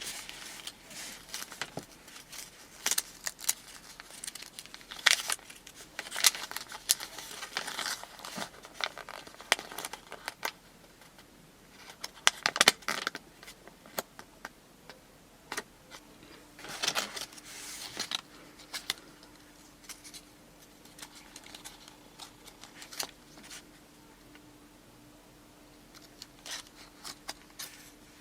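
Close handling of a Kinder Surprise egg's wrapping and toy capsule: irregular clusters of crinkling and small sharp clicks, some louder and some quieter. A faint steady hum comes in about halfway through.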